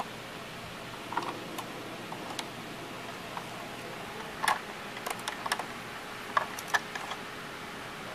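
Scattered sharp clicks and knocks of plastic parts on an Epson L120 inkjet printer as they are handled and fitted by hand, coming more thickly in the second half, over a steady faint hiss.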